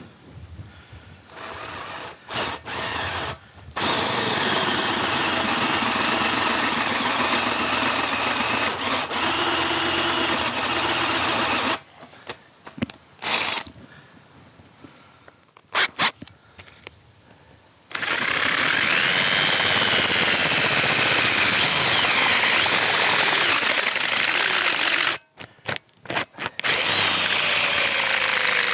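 Power drill boring out a broken stud in a David Brown 990 tractor's final drive casting. It runs in bursts: a few short blips, then two long runs of about seven to eight seconds each, with its pitch wandering under load, and a shorter run near the end.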